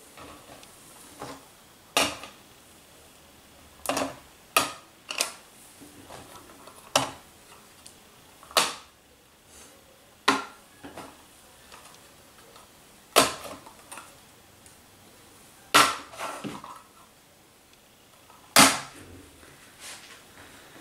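Sharp clacks and knocks of hard objects being handled and set down, about ten at irregular intervals of one to three seconds, a few in quick succession.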